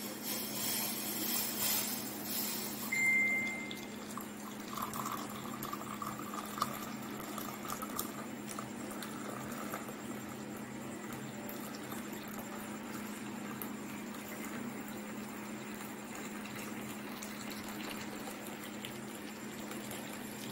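A hot drink being poured through a strainer into a cup: liquid trickling and splashing, loudest in the first few seconds, over a steady low hum.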